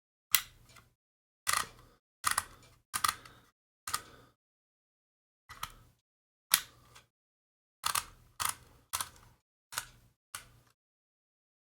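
Vintage Dymo handheld embossing label maker being squeezed letter by letter, each squeeze a sharp plastic-and-metal clack as a character is punched into the tape. About a dozen clacks come at uneven intervals, roughly one a second, some in quick pairs. The tape is not advancing well on its own between letters.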